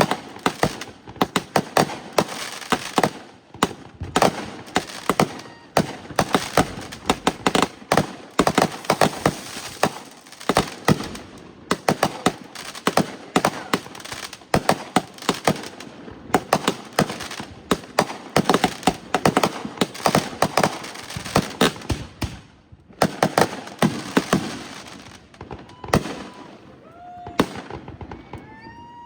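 Fireworks going off in a dense, continuous barrage of sharp cracks and bangs, many per second, thinning out near the end.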